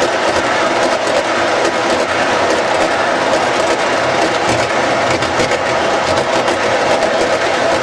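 O-gauge model train cars, plastic Chessie System covered hoppers, rolling past on three-rail track: a steady metallic wheel-and-rail clatter made of many small rapid clicks.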